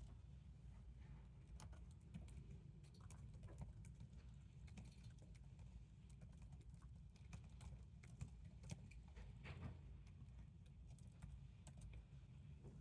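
Faint typing on a computer keyboard: scattered, irregular keystrokes over a low steady room hum.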